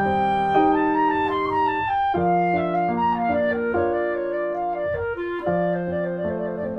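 Instrumental background music: a slow melody of held notes over a keyboard-like accompaniment.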